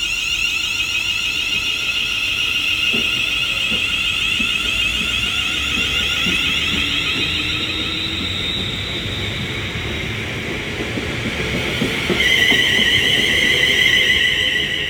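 Class 350 Desiro electric multiple unit pulling away, its traction equipment giving a steady high whine of several tones over low wheel rumble. About twelve seconds in the whine shifts to two louder tones.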